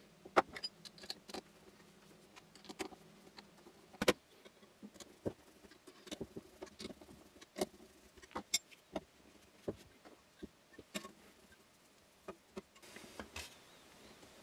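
Irregular light clicks and knocks of 3D-printed plastic brackets and steel shafts being handled and fitted together, with a hex key turning the bracket screws; one sharper knock about four seconds in.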